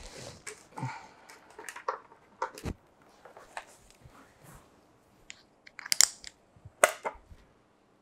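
Handling noises as a half helmet is pulled on over a face shield and mask: rustling and light plastic knocks, then a few sharp clicks about six and seven seconds in as the chin strap is handled.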